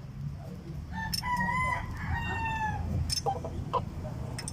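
A rooster crowing once, a drawn-out call from about one to three seconds in that dips in pitch at the end, with a few sharp metallic clicks of hand tools.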